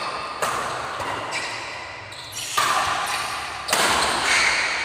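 Badminton rackets striking the shuttlecock in a fast doubles rally: sharp hits about a second apart, the loudest about half a second in and twice in the second half, each echoing in a large hall.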